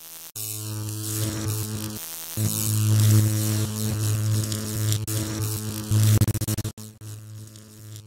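Electrical buzz sound effect: a steady mains-style hum with crackling static, dropping out briefly about two seconds in and stuttering with sharp clicks near the end before fading to a quieter buzz.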